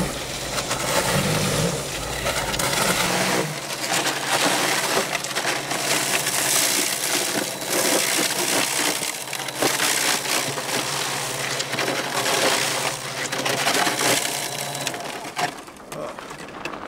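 Greenworks Pro 80V cordless electric snow shovel running, its 12-inch rotor chewing through packed snow and throwing it: a dense crunching, scraping noise over a steady motor hum. The noise falls away about a second before the end.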